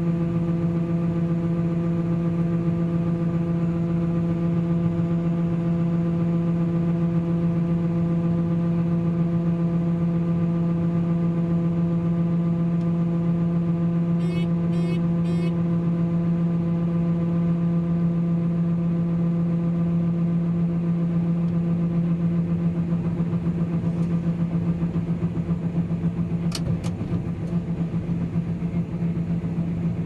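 Combine harvester running while its unloading auger empties oats into a grain cart: a steady engine and auger hum. The hum roughens and the grain flow thins in the last few seconds, with a couple of sharp clicks.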